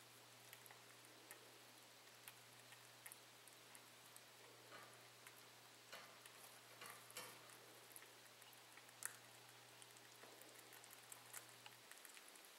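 Near silence with faint, scattered ticks and clicks as baby cottontail rabbits lick and nibble at a feeding syringe tip, over a faint low hum that stops near the end.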